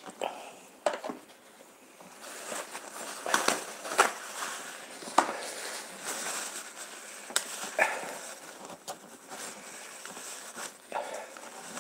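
White wrapping rustling and crinkling as it is handled close to the microphone, starting about two seconds in, with several sharp crackles and clicks.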